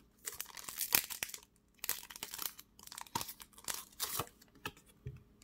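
Foil wrapper of a Pokémon Evolutions booster pack crinkling and tearing as it is opened and the cards are pulled out, in short, irregular rustles.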